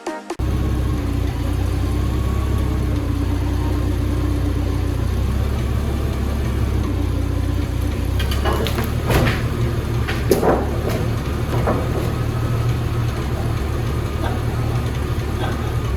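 Forklift engine running steadily at a low pitch while the machine pushes a very heavy log, with a handful of short knocks and clanks about halfway through.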